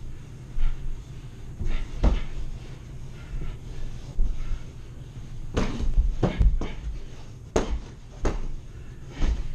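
Boxing gloves thudding and slapping during a sparring exchange: a string of sharp impacts, with a quick flurry of four about halfway through.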